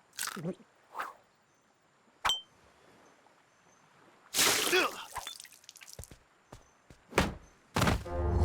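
Sparse cartoon sound effects over a quiet track: a short falling swish, a sharp click, a longer noisy rush about four seconds in, a few light ticks, and a thump near the end.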